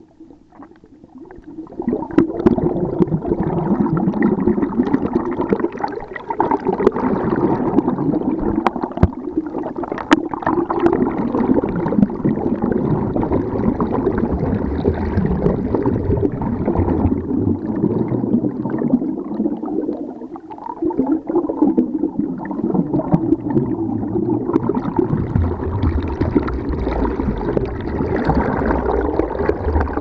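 Stream water rushing over a stony bed, heard underwater through an SJ4000 action camera's waterproof housing as a dense, low rumbling gurgle, lowered in pitch by half-speed slow motion. It swells up about two seconds in and dips briefly around the twenty-second mark.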